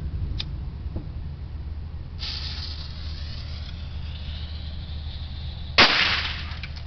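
A small firework's fuse hissing and spitting sparks for a few seconds, then one loud bang as it goes off.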